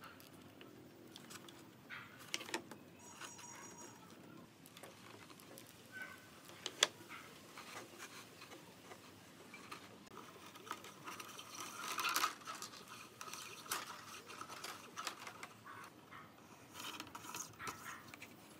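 Faint scattered clicks and taps of hands handling a thin electrical wire and a hot glue gun against a wooden frame, with one sharper click about seven seconds in.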